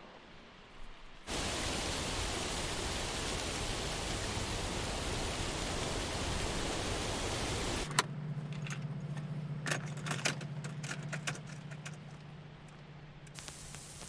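Sounds in a car before a song starts: a steady rush of noise that starts suddenly about a second in and cuts off about eight seconds in, then a low steady hum with scattered clicks.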